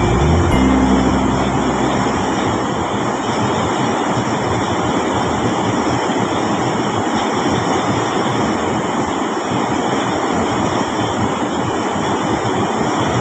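Steady rush of fast river water, an even noise with no distinct tones. The tail of some music fades out within the first second or two.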